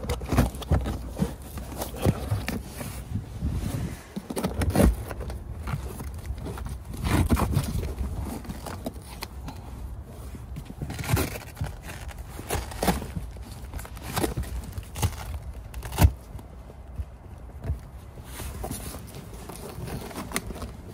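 Handling noise of a fabric-and-rubber cargo liner panel being pushed and fitted against carpeted trunk side trim: irregular scraping and rustling with scattered knocks, the sharpest about 16 seconds in.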